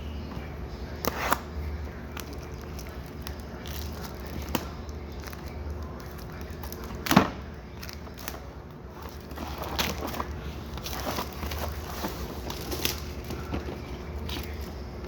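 An Amazon shipping package being handled and opened: crinkling and tearing of packing material, with scattered knocks, the loudest a sharp knock about seven seconds in, over a steady low hum.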